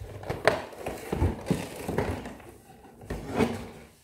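Cardboard advent calendar box being handled and opened, with several soft thumps and taps and some rustling.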